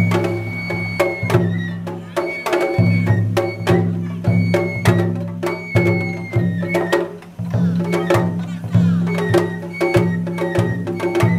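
Japanese festival music: drums struck hard in a quick, uneven rhythm over a steady low drone, with short held high notes above.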